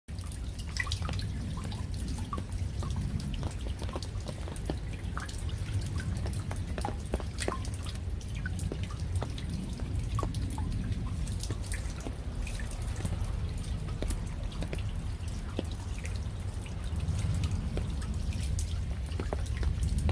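Raindrops falling as separate, irregular drips. Each drop lands with a sharp tick or a short pitched plink, over a steady low rumble.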